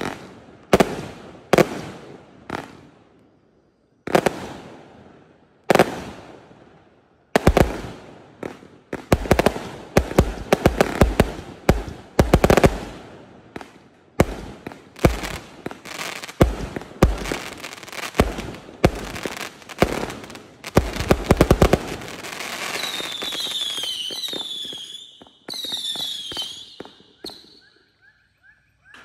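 A 0.8-inch, 368-shot fireworks cake firing: sharp bangs, each with a fading crackling tail, come singly and in quick clusters with short pauses between. Near the end comes a stretch of hissing with shrill whistles that fall in pitch.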